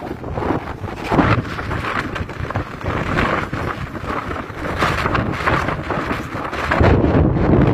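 Strong wind blowing across the phone's microphone in uneven gusts, a low rumbling buffet that swells loudest near the end.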